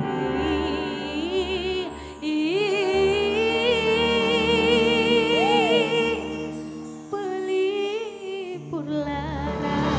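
A woman singing into a microphone over backing music, with a strong vibrato on her held notes; one long held, wavering note through the middle, then a short break before she sings on.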